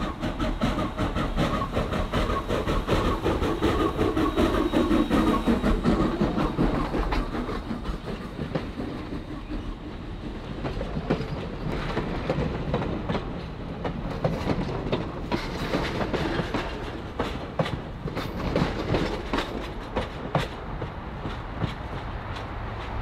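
Steam train passing close by: Granite Rock No. 10, a 0-6-0 saddle-tank steam locomotive, goes by first, loudest in the first six seconds with a sound that drops in pitch as it passes. Then its passenger coaches roll past with steady clickety-clack of wheels over rail joints, easing off near the end as the train moves away.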